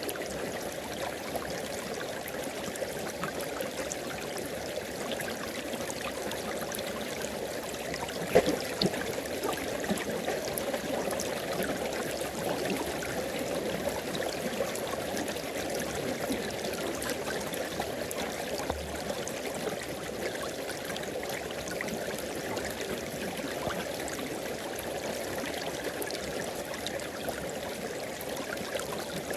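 River water flowing steadily, a continuous rushing burble, with one sharp click about eight seconds in.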